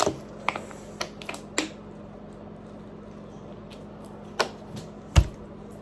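Scattered sharp clicks and taps from eating noodles: a cluster of clicks in the first two seconds and a louder thump about five seconds in, over a steady low hum.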